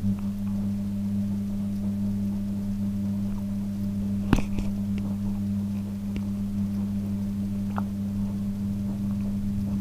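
Steady low electrical hum, cutting off suddenly near the end, with one sharp click about four seconds in.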